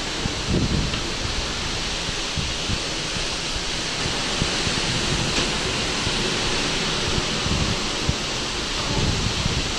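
Steady rushing of seawater along a moving cruise ship's hull, with wind buffeting the microphone in low gusts, strongest about half a second in and near the end.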